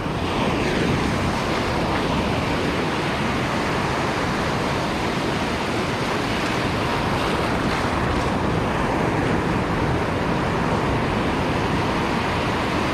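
Steady rush of sea waves breaking on the shore, with wind on the microphone.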